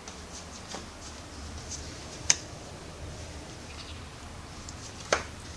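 A white Chinchilla Persian cat eating egg white from a hand: small wet clicks and smacks of chewing and licking, with two sharper clicks, one a little after two seconds in and one near the end.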